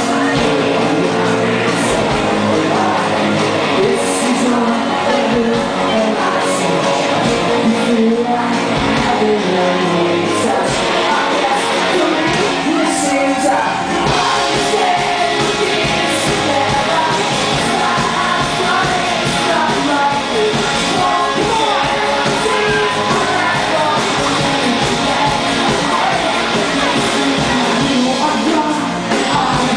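Live pop-rock band playing with a lead singer, heard from the audience in a large hall, with crowd shouts mixed in.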